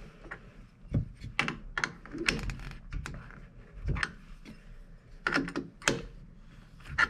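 Steel open-end wrench clicking and clinking against the collet nut of a DeWalt DWP611 router as it is fitted, turned and refitted to loosen the collet, with a couple of duller knocks. The irregular clicks come as the nut catches and has to be turned a second time before it comes loose.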